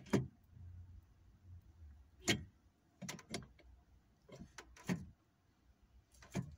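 Column gear selector on a 1974 Chevrolet Monte Carlo's TH350 automatic being moved through its positions: a series of sharp detent clicks, some in quick pairs. The firm click comes from a new detent spring and selector lever fitted inside the transmission.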